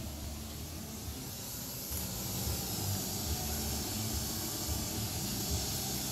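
Oxy-acetylene torch freshly lit and burning acetylene alone, before the oxygen is opened: a steady rushing hiss, a little louder from about two seconds in.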